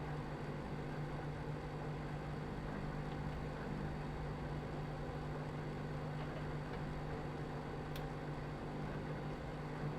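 Microwave oven running: a steady low hum with a faint click about eight seconds in.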